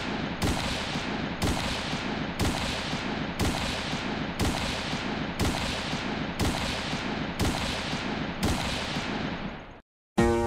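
Editing sound effect of sharp bangs, ten in a row about one a second, each with a noisy rumbling tail that runs into the next, fading out just before the end. Plucked-string music starts right at the end.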